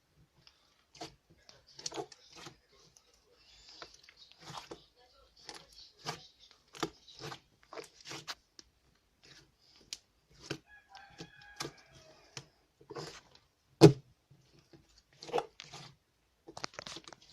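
Slime being worked by hand, giving an irregular run of short squelches and pops, with one much louder pop about fourteen seconds in.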